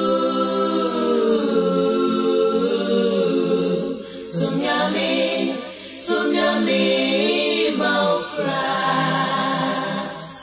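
Gospel choir of mixed voices singing a cappella in Twi, held sustained lines with no instruments; the voices drop away briefly about four and six seconds in, then carry on.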